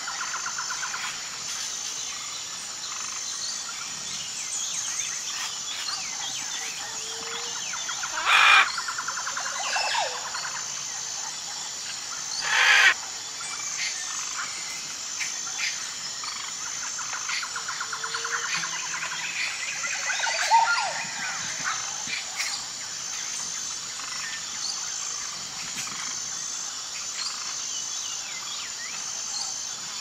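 Rainforest ambience: a steady, pulsing high insect drone with frogs and birds chirping throughout. Two loud squawks stand out about 8 and 13 seconds in, with another loud call about 20 seconds in.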